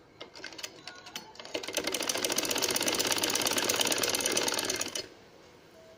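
Sewing machine stitching: a few slow, separate stitches first, then about three seconds of fast, steady stitching that stops suddenly.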